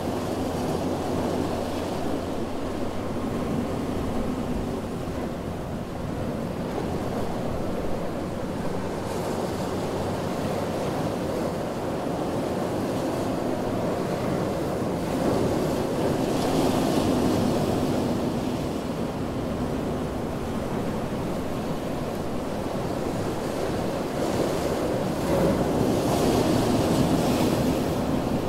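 Ocean surf washing on a beach: a steady rush of breaking waves that swells louder about halfway through and again near the end.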